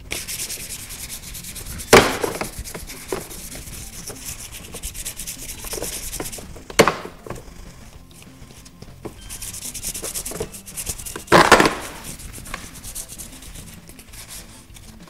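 Purple plastic part of a Power Wheels ride-on toy being hand-sanded with a sanding sponge: steady back-and-forth scrubbing. Three loud knocks break in, about two seconds in, near seven seconds and around eleven seconds.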